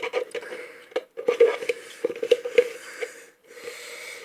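Slime being stirred in a cauldron: irregular wet squishing with small clicks and scrapes against the container.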